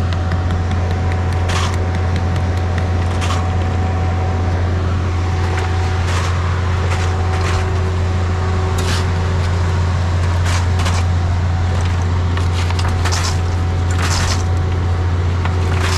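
Concrete boom pump truck running steadily with a strong low engine hum, with irregular short knocks and clacks every second or two.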